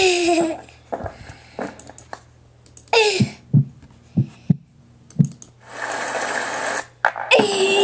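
A string of short, separate sounds: falling pitched cries at the start, about three seconds in and near the end, a few short low blips between them, and about a second of hiss around six seconds in, over a low steady hum.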